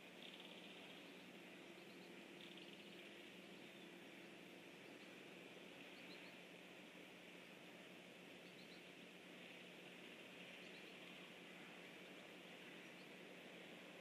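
Near silence: faint outdoor ambience, a steady low hum under a soft high hiss, with a few very faint short chirps scattered through.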